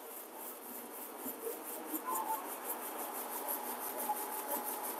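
Label finishing machine running, with a fast, even ticking and a thin steady whine that comes in about two seconds in.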